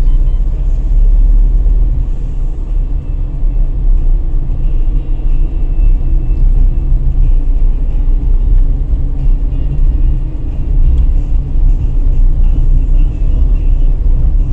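A car driving on city streets, heard from inside the cabin: a steady, heavy low rumble of road and engine noise that swells and eases slightly.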